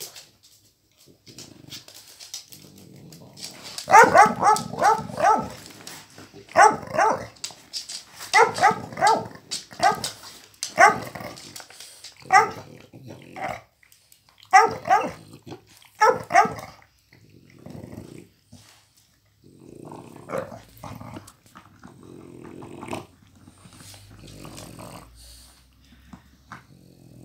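A pit bull and a miniature pinscher growling and barking in play over a rubber chew toy. Clusters of short, sharp barks, several in quick succession, come from about four to sixteen seconds in, with quieter growling around them.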